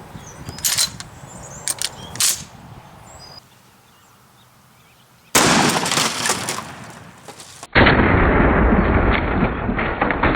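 A 12-gauge pump shotgun fires a 3-inch 00 buckshot shell into a Keurig coffee maker about halfway through: a sudden loud blast that rings on for a couple of seconds. It follows a few sharp clicks near the start. For the last few seconds a loud, muffled sound follows.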